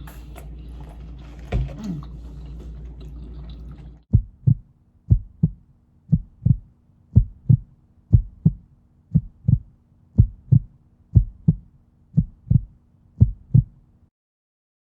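Chewing and mouth sounds for about four seconds, then the track cuts abruptly to a heartbeat sound effect: about ten double thumps (lub-dub), roughly one a second, that stop about a second before the end.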